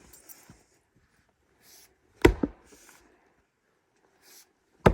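Splitting maul striking a large log in two heavy blows about two and a half seconds apart, each with a short second knock as the head bounces; the second blow lands near the end.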